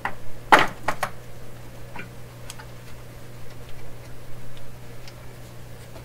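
Sharp clicks and light taps from small hand tools working on wire at an electronics bench: a cluster of loud clicks about half a second in, then scattered fainter ticks at uneven spacing, over a steady low hum.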